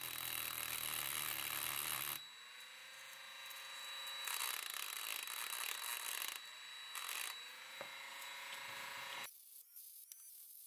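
Cordless rotary tool with a small grinding stone running at high speed, grinding the metal terminal end of an 18650 lithium-ion cell to roughen it so it takes solder. It makes a steady high whine, and the grinding noise swells and fades as the stone is pressed to the metal. The tool stops about nine seconds in.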